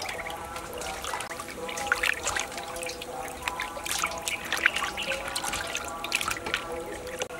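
Water splashing and sloshing in a stainless steel bowl as hands rub and turn raw pig liver to wash it, with irregular wet slaps and drips.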